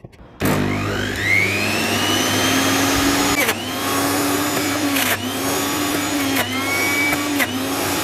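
Havells juicer mixer grinder switched on: the motor whines up to speed, then runs its juicer attachment as beetroot is pressed down the feed chute. The motor pitch sags briefly about four times under the load.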